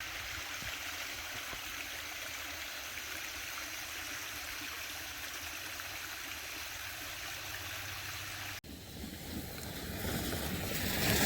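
Steady rushing noise, like running water. It breaks off abruptly about eight and a half seconds in, and a different, louder noise swells up toward the end.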